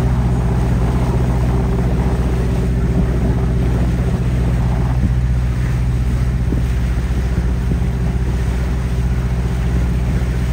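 Boat engine running at a steady cruise, a constant low drone, with wind and water noise over it.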